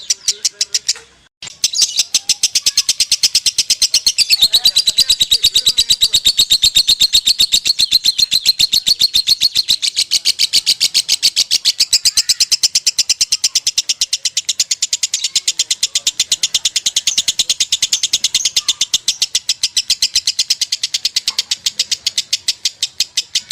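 A lovebird's long, unbroken 'ngekek' chatter: a very rapid, high-pitched run of repeated notes. It stops for a moment about a second in, then goes on without a break.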